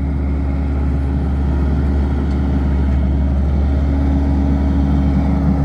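Skid steer loader's engine running steadily, a constant low hum with no change in speed.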